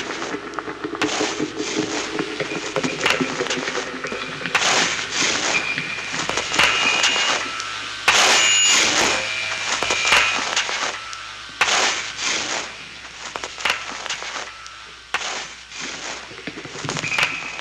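Experimental noise music: irregular bursts of scraping, clattering noise come and go, with brief high squealing tones now and then. A low drone underneath fades out in the first couple of seconds.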